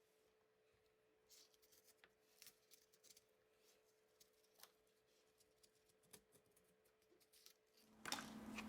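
Near silence: faint room tone with a faint steady hum and a few faint ticks, then a louder rustling noise starts near the end.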